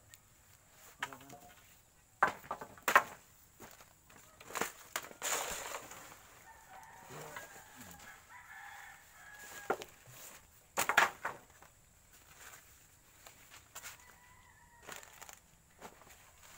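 A rooster crowing in the background. Several sharp, loud knocks stand out above it, the loudest about 3 seconds in and again about 11 seconds in.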